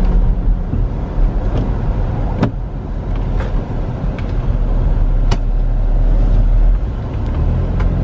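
Steady low rumble of a car driving, heard from inside the cabin: engine and tyre road noise, with a few brief clicks.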